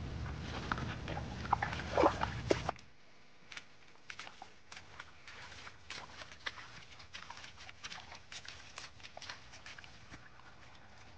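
A low rumble with a few short, high squeaky sounds about two seconds in. It then drops suddenly to a faint background of scattered light ticks and patter from rain drips and footsteps on wet ground.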